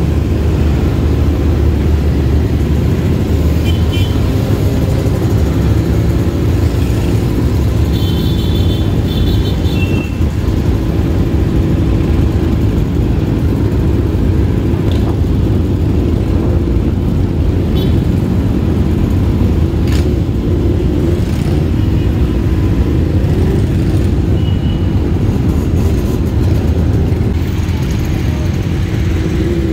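Motorcycle engines running steadily in a large group ride, heard from one of the bikes in the column as a continuous deep rumble.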